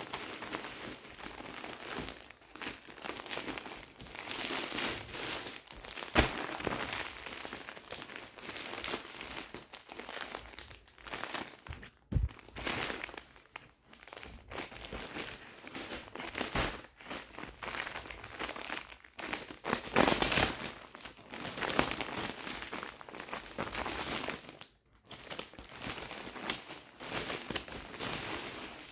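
Clear plastic clothing packets crinkling and rustling as they are handled and unpacked, in irregular spells with short pauses.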